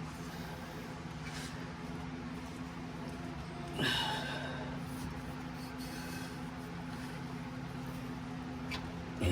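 A man straining to twist an oily oil filter by hand with a towel, letting out one short falling grunt or exhale about four seconds in, over a steady low hum.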